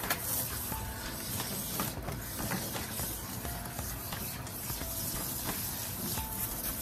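Garden hose spray nozzle hissing steadily as water sprays onto a wet dog's coat.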